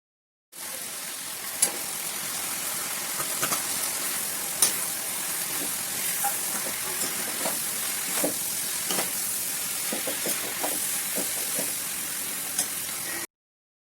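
Food sizzling as it fries in a pan while being stirred, with scattered sharp clicks of the utensil against the pan. The sound cuts in about half a second in and cuts off abruptly near the end.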